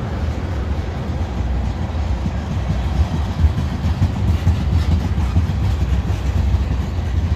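Tank cars of a freight train rolling past close by: a steady, loud, low rumble of steel wheels on the rails with uneven clatter.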